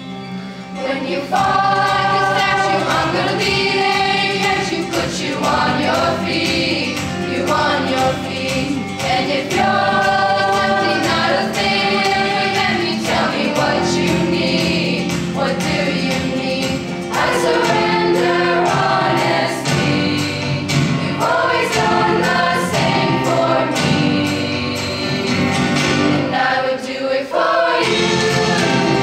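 Mixed choir of young men and women singing a pop song in several-part harmony, coming in fuller about a second in.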